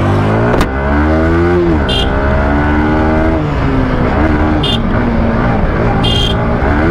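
Yamaha R15's single-cylinder engine pulling away and revving up through the gears. Its pitch climbs and then drops at each of two shifts before it runs more evenly at low speed. A few short high beeps sound over it.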